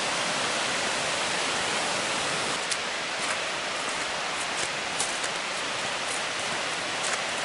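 Steady rushing of Suuçtu Waterfall, a drop of about 38 metres, with water falling continuously.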